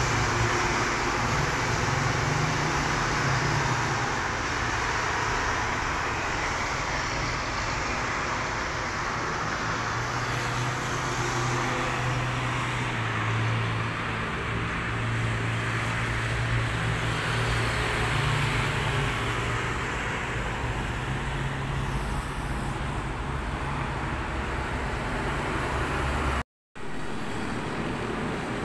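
Road traffic on a wide multi-lane road: the steady sound of passing cars and vans, with a low engine hum that swells and fades as vehicles go by. The sound drops out for a moment near the end.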